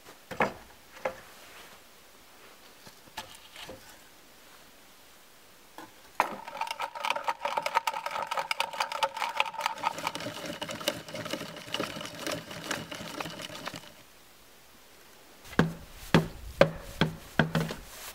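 Power drill with a spade bit boring into a log, its motor running steadily for about eight seconds midway. Before it come two sharp knocks of wood, and near the end a run of five or so loud wooden knocks.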